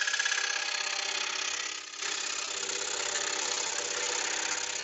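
Axminster AP535SS 21-inch scroll saw running and cutting through a small block of wood, the blade stroking up and down in a fast, even buzz. The sound dips briefly about two seconds in.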